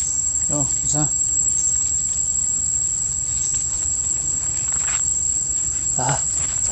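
Steady high-pitched drone of insects, with a few short calls about half a second in and again near the end.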